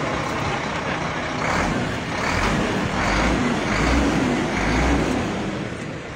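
Steady noise of truck engines running, with a run of about five dull low bumps, each under a second apart, through the middle.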